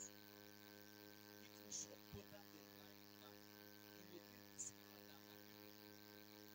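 Near silence with a steady electrical mains hum, and two faint, brief hisses.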